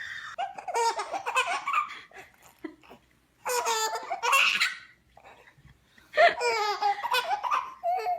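A baby laughing in three bouts, separated by short pauses.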